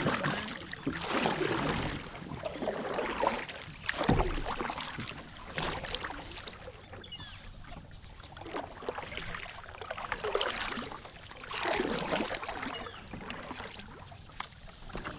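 Kayak paddle strokes, the blades dipping and splashing in calm water in uneven swells every couple of seconds.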